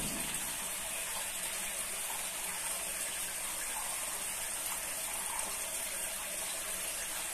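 Natural spring water running steadily over rocks and splashing into a small pool.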